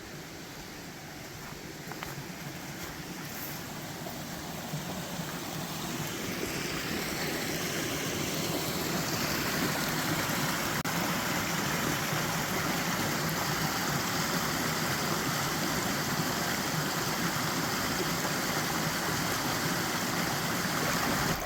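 Creek water rushing over rocks: a steady noise that grows louder over the first eight seconds or so, then holds level.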